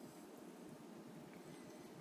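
Near silence: steady room tone with a few faint clicks.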